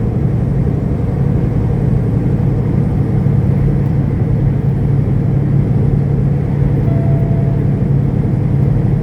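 Semi-truck's diesel engine running steadily while driving, a constant low drone with road noise, heard from inside the cab.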